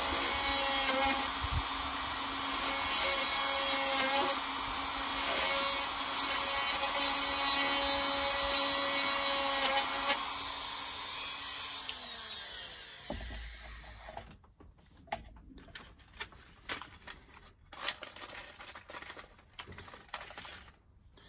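Hand-held rotary tool running with a fine drill bit, boring small holes into the planked wooden hull of a model ship. About ten seconds in it is switched off and its whine winds down over a few seconds, leaving only light clicks and taps of handling.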